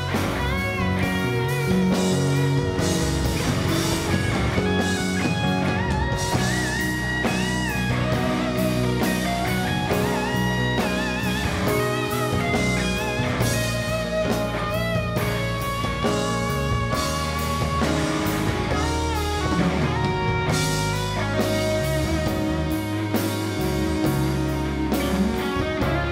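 Live band playing rock: a Stratocaster-style electric guitar plays a lead line with bent notes over drums and keyboard.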